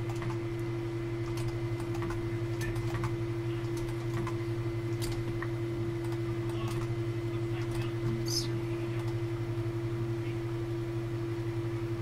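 Computer keyboard and mouse clicks, irregular and scattered, over a steady low electrical hum.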